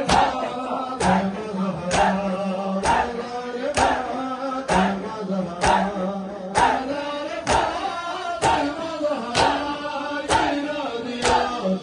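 A crowd of men beating their chests in unison (matam), a sharp slap a little under once a second, keeping time with a man chanting a noha into a microphone over a loudspeaker.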